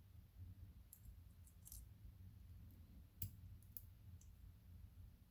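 Faint, scattered small clicks of lock pins and tools being handled while the ISEO F6 extra padlock's pin chambers are reloaded, with one sharper click about three seconds in.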